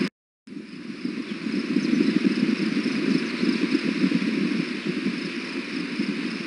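Steady low rumble of distant road traffic picked up by an outdoor nest-cam microphone, with a brief gap of silence just after the start.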